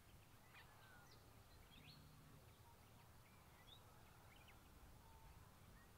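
Near silence: faint outdoor ambience with scattered faint, brief bird chirps.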